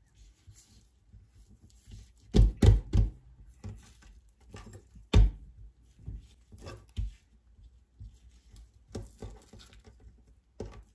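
Irregular soft thumps and knocks of dough being worked by hand on a board while a thin samosa pastry sheet is stretched, with a quick run of three knocks a few seconds in and a single stronger one about five seconds in.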